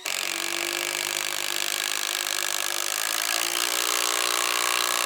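Cordless power saw cutting through wood: a steady motor hum under the hiss of the blade in the timber, the hum dipping slightly in pitch a little past halfway.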